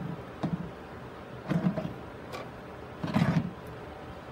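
Plastic grid mounting board scraping and knocking on a plastic box lid as it is turned by hand, in a few short irregular bursts, the loudest a little after three seconds in.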